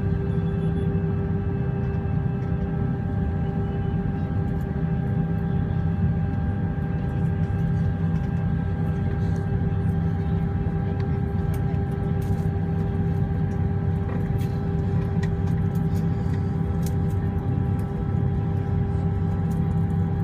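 Jet airliner heard from inside the cabin while taxiing: the engines run steadily at low power with a deep rumble and a steady whine of several high tones that stays level, with no spool-up.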